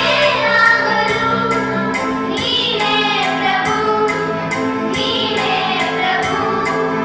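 A group of children singing together into a microphone over an instrumental accompaniment that keeps a steady beat.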